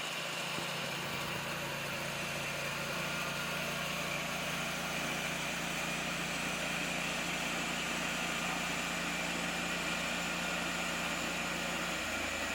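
Vintage sawmill's engine running steadily; the low hum changes just before the end.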